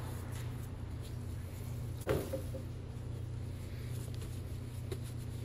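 A single sharp knock about two seconds in and a faint click near the end, over a steady low hum.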